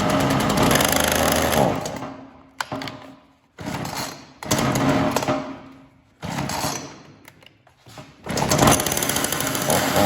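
Ryobi RY3714 two-stroke chainsaw engine running in surges that bog down and die away, catching again several times. It dies out when given gas, which the owner takes for a lean condition, not getting enough fuel or air, perhaps from the carburetor.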